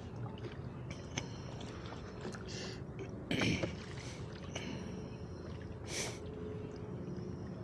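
Oars dipping and splashing as a small rowboat is rowed, a few separate strokes, with a knock about three and a half seconds in, over a steady low rumble of wind and water.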